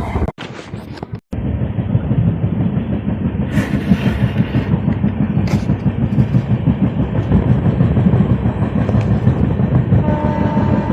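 Train hauled by a WAG-9 electric locomotive running along the track: a steady rumble with wheel clatter. A horn starts sounding near the end.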